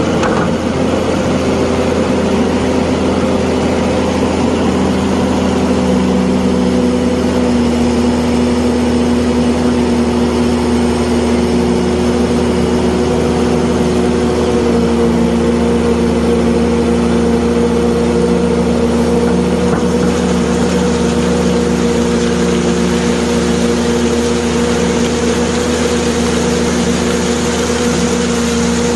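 Excavator running steadily while loading sand: a continuous machine drone with a low hum and several held tones, whose pitch shifts slightly a few times as the load changes.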